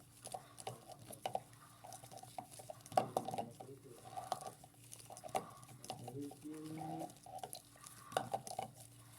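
Washing machine running a wash cycle: irregular clinks and knocks from the tumbling load, with water sloshing over a low hum.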